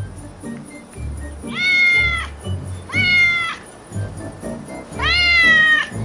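A domestic cat meowing three times, each meow under a second long, over background music.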